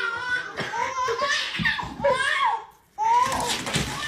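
A baby and an adult laughing in bursts, with the sound dropping out briefly about three seconds in.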